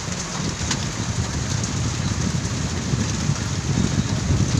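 Steady rain falling, with a low rumble underneath that grows slightly louder toward the end.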